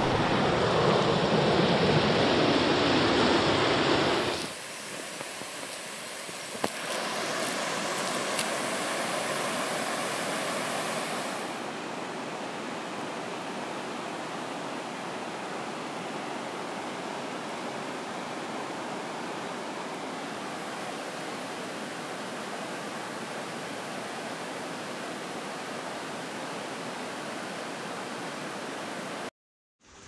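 Mountain river rushing over boulders and rapids, loud at first, then dropping to a quieter, steady rush of water after about four seconds; it cuts off abruptly just before the end.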